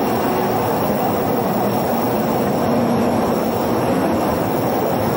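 Rhaetian Railway train on the Arosa line running along the track, heard from aboard the observation car: a steady, loud rolling noise of wheels on rail.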